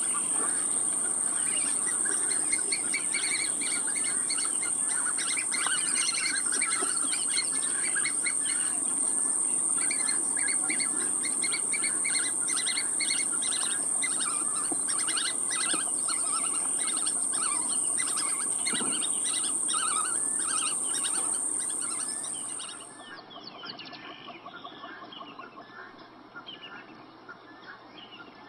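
Birds chirping over a steady high-pitched whine; the whine cuts off suddenly near the end and the sound drops much quieter.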